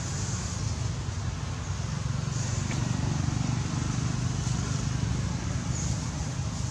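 Steady low rumble with an even hiss of outdoor background noise; no animal calls stand out.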